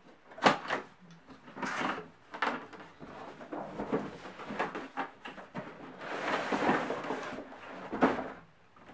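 Cardboard box being lifted and slid off its molded pulp packing: a series of scrapes and rustles of card, with a longer sliding scrape about six seconds in and a knock about eight seconds in.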